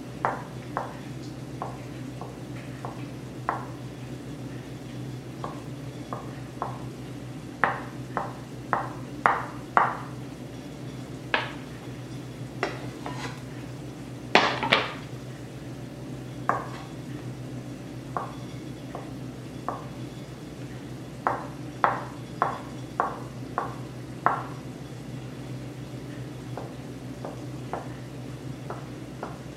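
Kitchen knife dicing hard-boiled eggs on a plastic cutting board: irregular knocks of the blade striking the board, some in quick runs of four or five, over a steady low hum.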